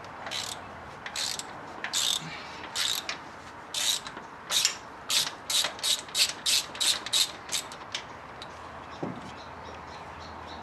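Hand socket ratchet clicking in short strokes, spaced out at first, then quickening to about three strokes a second before stopping about eight seconds in.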